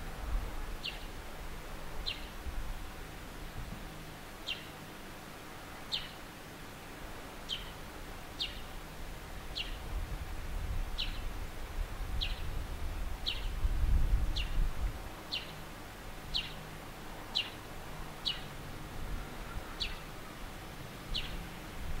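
A small bird calls again and again, giving a short, high, downward chip about once a second. Under it runs a low rumble that swells around the middle.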